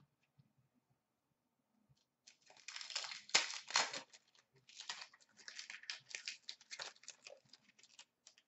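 Plastic trading-card pack wrapper crinkling and tearing as a pack is opened. The sound comes in a dense run of rapid crackles that starts about two seconds in and stops just before the end.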